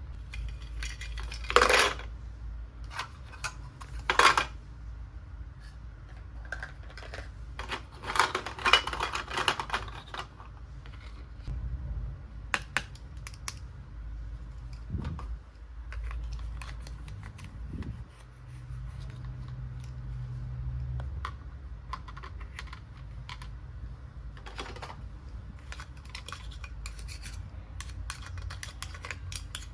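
Small plastic toy kitchen pieces being handled and set down, making scattered light clicks, taps and rustles. There are louder clattering bursts about two seconds in, about four seconds in, and for a couple of seconds around eight seconds in.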